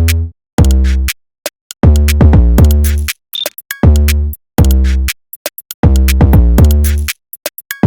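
Electronic hip-hop backing music: heavy drum-machine beat with deep bass hits and synth, in short loud phrases separated by sharp gaps of silence.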